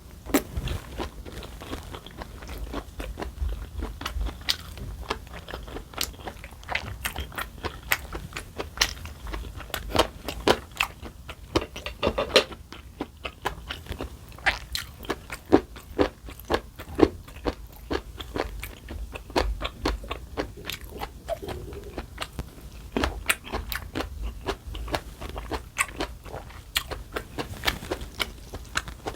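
Close-miked eating for a mukbang: steady chewing and biting with many sharp, irregular crunchy clicks.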